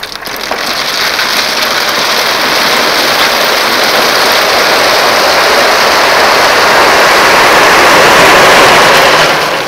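A load of river rock sliding out of a tipping dump truck bed onto a gravel drive: a continuous dense rattle of stones that grows louder over several seconds and dies away near the end.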